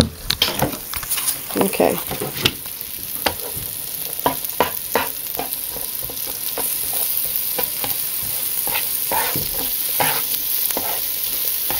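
Chopped bell pepper and garlic sizzling in melted butter on a flat griddle, with a spatula scraping and tapping against the griddle surface in quick, irregular strokes. The sizzle grows slightly louder as the stirring thins out.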